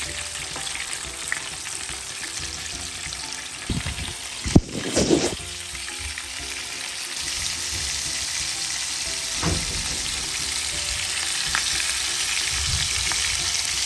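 Kebab patties sizzling steadily as they shallow-fry in oil in a grill pan, with a few knocks as they are turned, the loudest about four and a half seconds in.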